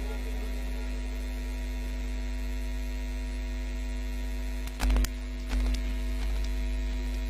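Steady electrical mains hum from the microphone and PA system, with no voice on it. Two short thumps come about five seconds in, half a second apart.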